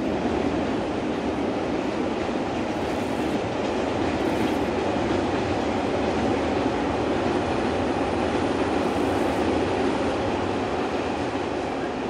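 Train crossing a large concrete bridge overhead, a steady heavy noise with no break.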